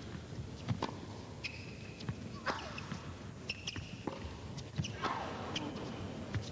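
Tennis rally on an indoor court: racket strings striking the ball back and forth every second or so, with tennis shoes squeaking on the court surface between shots.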